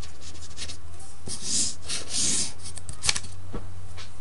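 Writing strokes scratching on a writing surface: several short scratches in the middle and a sharp click about three seconds in, over a steady low hum.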